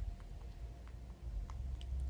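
Feral tom cat chewing food: a few separate crunching clicks about half a second apart over a low rumble.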